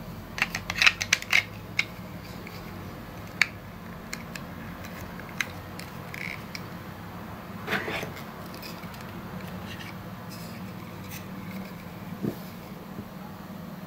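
Hard clear plastic toy parts handled and fitted together, clicking and clacking against each other: a quick run of sharp clicks about half a second in, a few single clicks after, and a longer scraping clatter about eight seconds in, over a steady low hum.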